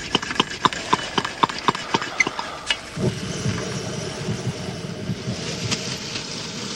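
Rapid metallic ticking, about four clicks a second, that stops about three seconds in. A camp stove then runs with a steady low rush as the fish is about to be fried.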